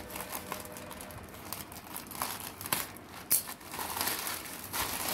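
Plastic courier mailer bag crinkling and rustling as it is cut with scissors and pulled open by hand, in irregular crackles; the rustling gets louder near the end.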